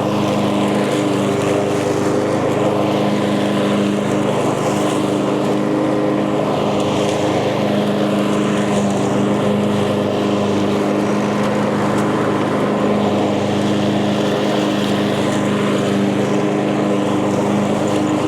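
Echo gas lawn mower engine running steadily at a constant pitch while cutting tall, thick grass.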